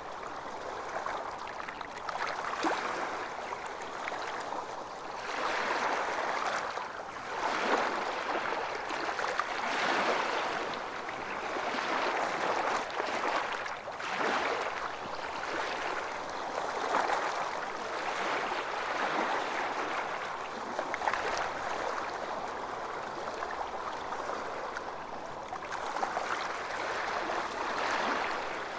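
Calm small waves lapping and splashing, swelling and easing every two to three seconds.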